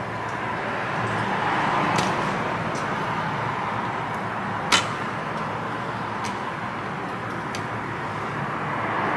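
Steady airy hiss of bench equipment, with a few small sharp clicks as a metal pick scrapes and taps at the black insulating film on a logic board; the loudest click comes about five seconds in.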